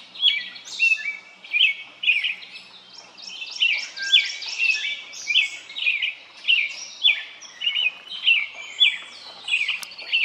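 Birds chirping: a short, sharp call repeats about twice a second, with more chirps from other birds overlapping higher up.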